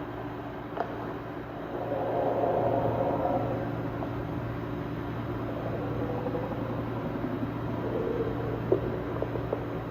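A steady low drone with a constant hum, swelling louder for a second or two about two seconds in, with a sharp click near the start and a few clicks near the end. It is a recording said to come from holes in the dried-up Euphrates riverbed and offered as noises of creatures below it, a claim the presenter himself will not vouch for.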